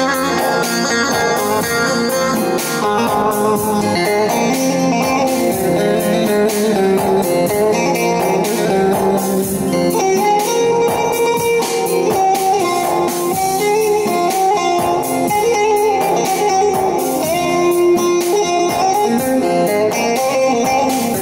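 Bağlama (saz, the long-necked Turkish lute) playing a rapidly picked melody: the instrumental introduction to a Teke-region folk song.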